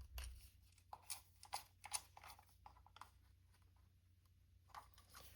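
Faint scattered clicks and taps of small 3D-printed plastic housing parts being handled and fitted together, about half a dozen light clicks over a near-silent background.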